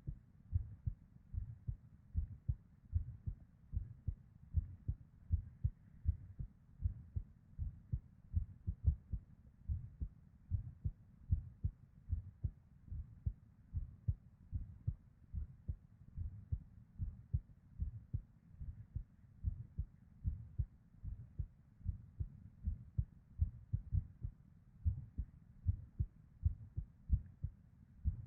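A woman's heartbeat heard from inside the chest: a continuous run of low, dull beats in an irregular rhythm, which the uploader attributes to premature (ectopic) beats, with a soft murmur of blood flow.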